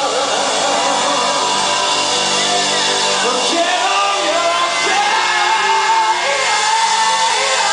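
Live rock band playing: electric guitar with bending, gliding notes over bass and drums.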